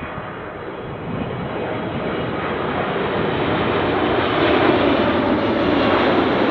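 Jet airliner on short final approach coming in low, its engine noise growing steadily louder as it nears.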